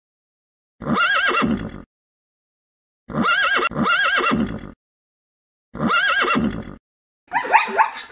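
Horse whinnying four times, the same call of about a second repeated with silent gaps between, two of them back to back. Near the end a different animal call begins: a rapid series of short, choppy calls.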